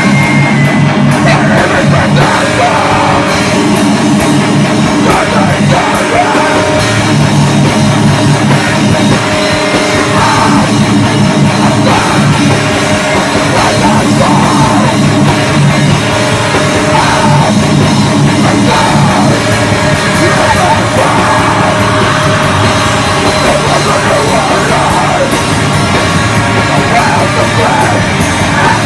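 Hardcore punk band playing live and loud: distorted electric guitar, bass and a drum kit.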